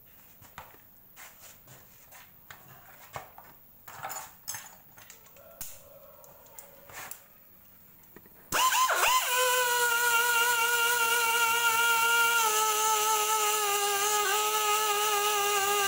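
Light clicks and knocks of tools being handled, then about eight and a half seconds in a pneumatic buffing tool starts abruptly. It runs with a steady high whine over air hiss, its pitch dipping slightly as it buffs the inner liner of a tubeless scooter tyre, roughening the spot around the puncture for a patch.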